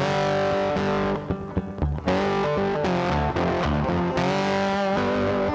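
Background music led by electric guitar, which briefly drops away about a second in and then comes back in full.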